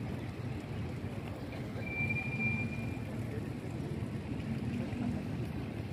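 Outdoor ambience with a steady low rumble. About two seconds in, a thin high tone is held for about a second.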